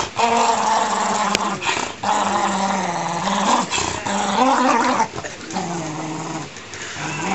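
Dachshund growling while tugging on a stuffed toy in a game of tug-of-war, a string of long growls with short breaks between them.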